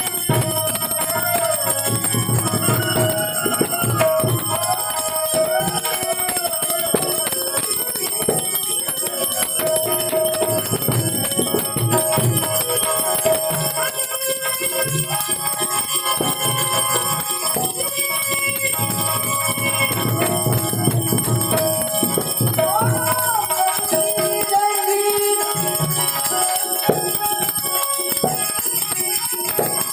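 Gujarati devotional santvani song: a young man's voice singing long, wavering phrases to harmonium accompaniment, with small bells or cymbals ringing steadily throughout.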